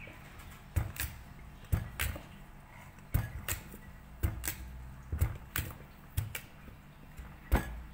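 Kitchen knife chopping a peeled taro into chunks on a wooden chopping board: irregular knocks of the blade striking the board, one or two a second, the loudest near the end.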